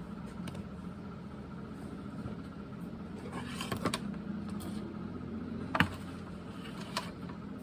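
Bird food being crushed up by hand: a crackly crumbling rustle about halfway through, then two sharp knocks, over a steady low hum.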